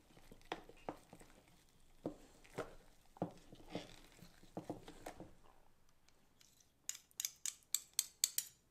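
Metal spoon stirring a thick flour-and-water sourdough starter in a glass container, with soft irregular scrapes and clinks against the glass. About seven seconds in, a quick run of sharp metal clinks, about four a second.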